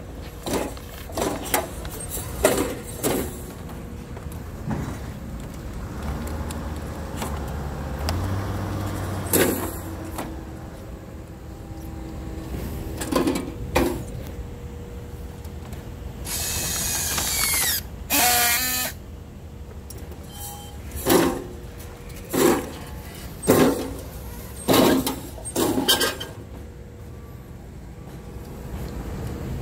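Plastic strapping being handled and pulled around a wooden cable reel, with repeated sharp clicks and knocks. About two-thirds of the way through, a battery-powered strapping tool runs for a couple of seconds, its motor rising in pitch as it tensions the strap, then gives a short second burst.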